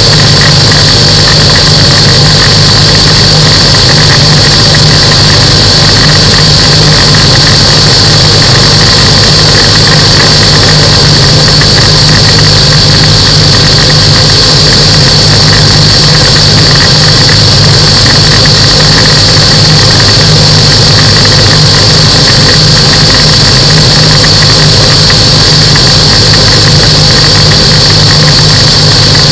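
Microlight aircraft engine and propeller running steadily and loud, with a constant high-pitched whine above the engine note.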